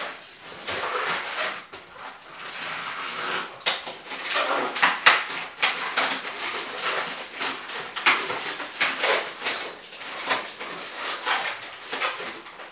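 Inflated latex modelling balloons squeaking and rubbing against each other in the hands, a steady run of short irregular squeaks, as a small green balloon bud is pressed and twisted into the centre of a pink balloon flower.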